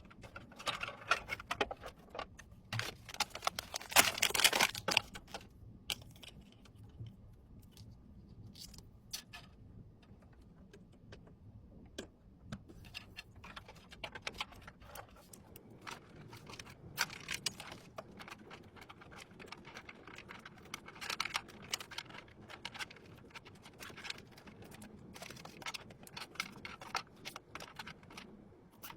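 Scattered clicks, taps and light rattles of PC parts being handled and fitted during assembly. There is a busier, louder cluster about four seconds in.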